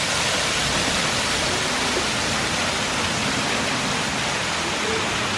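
Small waterfall's water falling down a rock face and splashing, a steady even rush.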